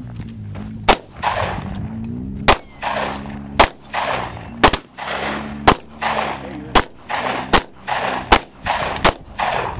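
A rapid string of shotgun shots, about nine of them, roughly one a second, each followed by a short echo.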